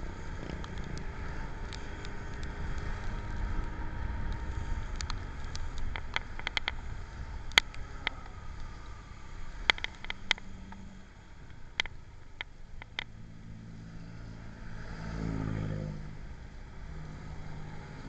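Motor vehicle running with a steady low rumble. Several sharp clicks sound between about seven and thirteen seconds in, and an engine swells and fades around fifteen seconds in.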